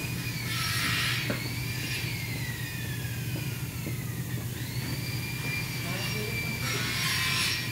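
Factory floor machinery noise: a steady low hum under a high whine that slowly falls in pitch and then climbs again, with two short bursts of hiss, about a second in and near the end.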